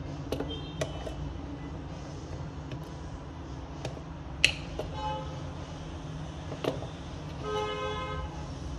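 Sharp metal clicks and knocks of an espresso tamper and portafilter being handled while tamping a coffee puck, the loudest about halfway through, over a steady low hum. Two short pitched tones are heard, one a little past halfway and one near the end.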